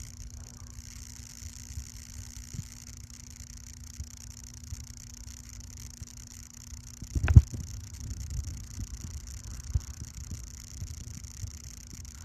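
Quiet indoor room tone with a faint steady hum, broken by one dull thump about seven seconds in and a lighter knock a couple of seconds later.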